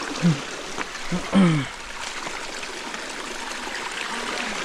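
Creek water running steadily over a small waterfall. In the first second and a half there are three or four short, low vocal sounds that fall in pitch; the loudest comes about a second and a half in.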